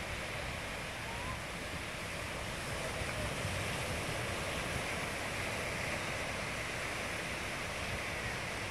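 Ocean surf breaking on a sandy beach: a steady wash of waves, with some wind buffeting the microphone.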